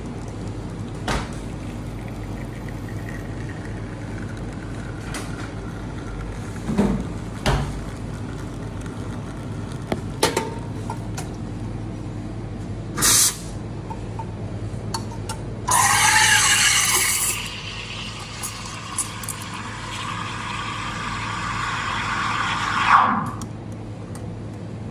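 Commercial espresso machine pulling a shot, its pump humming steadily, with a few light clinks. About halfway through, a short blast of steam from the steam wand purges it. A few seconds later the wand steams milk in a stainless steel pitcher: a loud hiss at first, then a lower, steadier hiss that swells before the steam is shut off.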